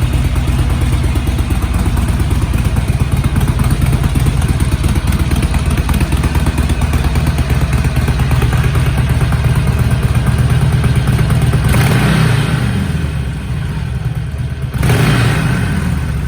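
Harley-Davidson Sportster 1200's air-cooled V-twin idling through its stock exhaust with a fast, uneven beat, then blipped twice near the end, each rev rising and falling back to idle.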